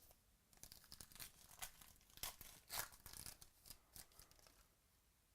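Trading-card pack wrapper being torn open and crinkled: a run of short, quick tearing and rustling crackles that stops about a second before the end.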